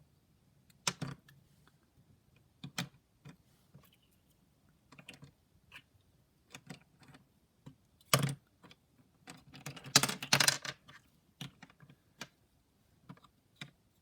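Plastic pieces of a barrel cube puzzle clicking and clattering as they are handled and fitted together by hand, scattered single clicks with a dense run of rattling clicks about ten seconds in.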